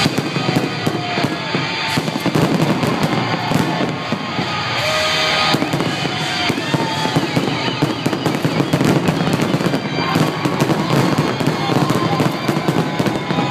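Fireworks going off in quick succession, a dense run of bangs and crackles, with music playing underneath.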